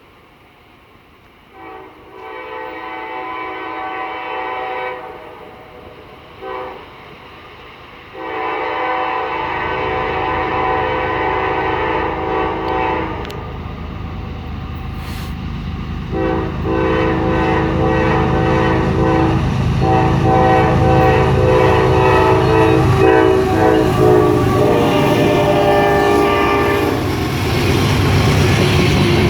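GE CW44AC diesel locomotive sounding its horn in a series of long and short blasts, a chord of several tones. Under the horn the locomotive's engine and the rolling train rumble, growing louder as the train draws near and passes.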